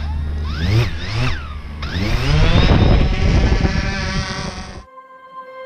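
DJI Phantom quadcopter's rotors spinning up: two short whines that rise and fall, then a loud rising whine as it lifts off and climbs, its pitch easing a little. It cuts off suddenly about a second before the end, leaving soft steady music tones.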